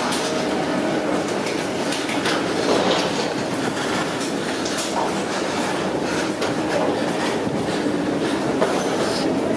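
Footsteps of a line of passengers and the wheels of rolling carry-on cases rattling over a hollow jet bridge floor: a steady clatter with many small knocks, over a constant background din.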